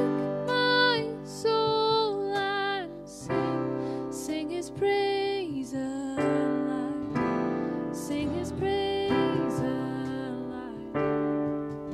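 A slow worship song played on acoustic guitar and piano, with a woman singing a held, wavering melody over the strummed chords.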